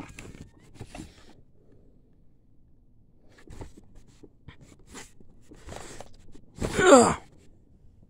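Cardboard box handled and turned close to the microphone, with soft rubs and scrapes, then a short, louder sound falling in pitch near the end.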